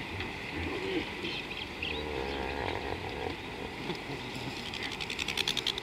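Bush ambience with scattered short bird chirps and warbles, and, about a second before the end, a fast run of sharp clicks at about ten a second.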